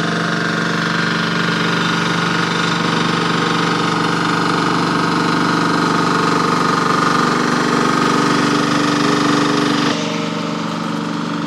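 Engine of a Furd 800 mm ride-on baby road roller running steadily as it rolls over and compacts a road sub-base. It is a little quieter from about ten seconds in.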